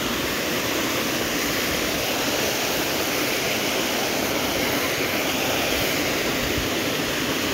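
Small waterfall cascading down a rocky stream bed, a steady rush of water.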